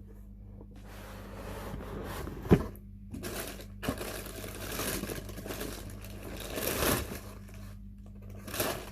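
Cardboard shoe box being opened and the contents handled: uneven rustling and scraping over a faint low hum, with a sharp knock about two and a half seconds in and the loudest rustle near the end.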